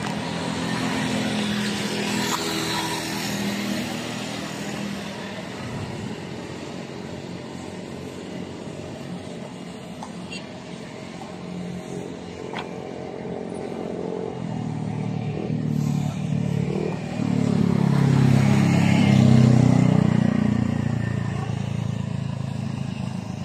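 Motor vehicle engines running past, with a steady rise and fall in pitch. One passes louder and closer from about 15 to 21 seconds in, its pitch climbing and then dropping.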